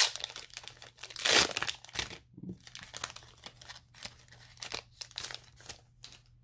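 Foil wrapper of a Pokémon trading-card booster pack being torn open and crinkled, with the loudest rip about a second in and lighter crinkling after it.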